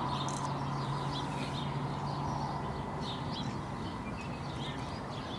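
Quiet outdoor ambience: faint, scattered bird chirps over a steady low hum.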